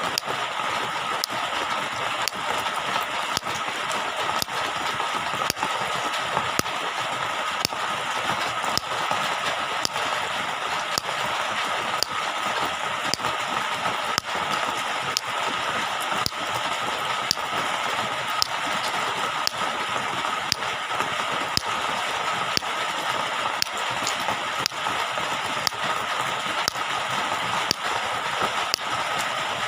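Steady rush of running water, with many small high clicks and ticks throughout.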